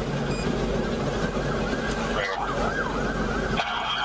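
Police car siren sounding in quick, repeated rising and falling sweeps, with a steady low hum beneath. It breaks off briefly near the end.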